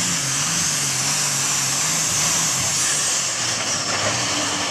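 A diesel pulling tractor's engine runs flat out under load as it drags a weight-transfer sled. The loud engine note wavers up and down over a steady high hiss and sags lower near the end.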